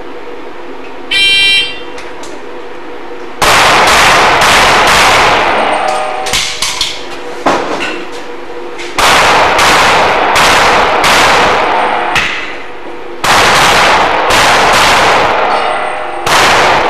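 A shot timer beeps once, about a second in. About two seconds later a pistol opens fire in rapid strings of shots, in several bursts separated by short pauses, each shot echoing.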